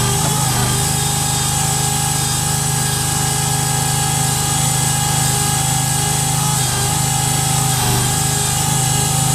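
AD-100 full hydraulic portable drilling rig running: a steady, loud machine drone with a low hum and a high whine.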